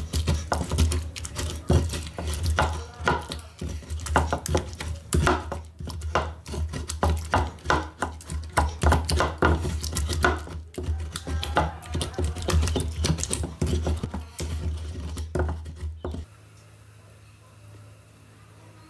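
Wooden pestle grinding fresh pepper in an earthenware grinding bowl: fast, uneven knocking and scraping of wood against the bowl through the wet mash, with dull low thumps. It stops abruptly about 16 seconds in.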